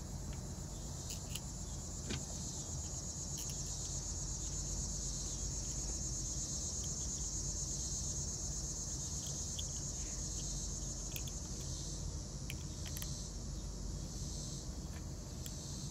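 Steady high-pitched insect chorus, like crickets, with a few faint clicks and taps over it.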